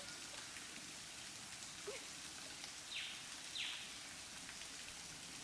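Steady rain falling, with two short, sharp bird calls in quick succession a little past halfway.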